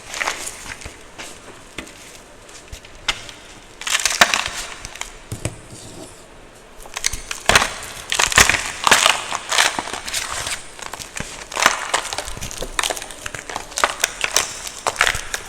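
Gym chalk being crushed: crisp crunches and crumbling cracks, a few scattered at first, then coming thick and fast from about halfway in.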